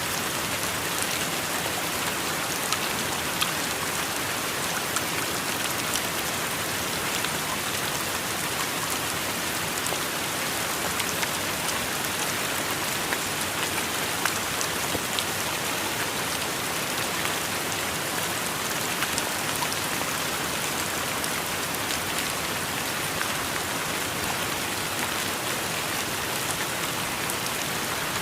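Heavy rain from a rainstorm falling steadily, with many sharp little drop impacts ticking on nearby surfaces.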